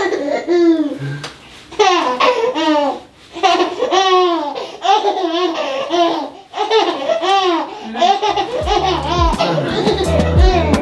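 A baby laughing in repeated high-pitched bouts of giggles. Background music with a bass line comes in near the end.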